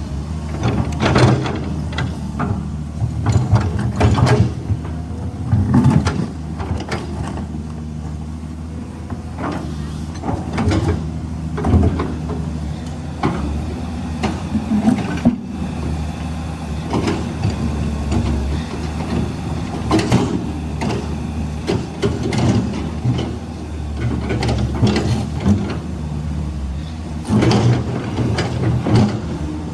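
Caterpillar 320 hydraulic excavator's diesel engine running steadily under load, with repeated clanks and scrapes as the bucket works among rocks.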